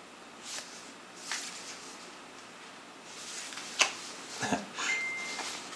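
Cardboard CD digipak being handled and opened: a few short rustles of card and paper, a sharp click about four seconds in followed by a dull thump, then a brief thin steady high tone near the end.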